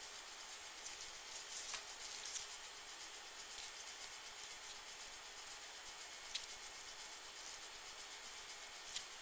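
Faint steady hiss with a few soft ticks and rustles: hands pinching and sealing crescent-roll dough around a meatball.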